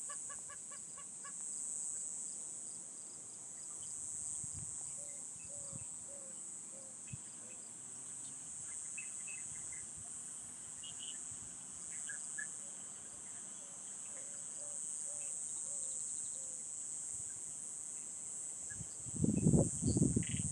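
A steady high-pitched chorus of crickets, with scattered bird chirps and calls. A chicken clucks in a quick run of notes at the start, and loud close thumps come near the end.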